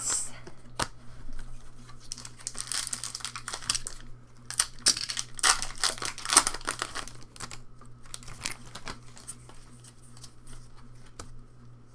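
Foil Pokémon booster pack wrappers crinkling and tearing as packs are opened and the cards handled. The rustling comes in clusters of quick crackles, busiest in the middle, over a faint steady hum.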